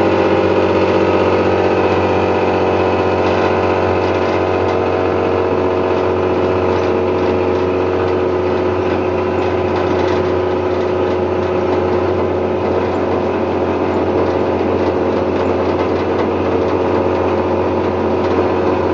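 Old Hino AK bus diesel engine running steadily with its snoring (ngorok) exhaust note, a rough, even drone.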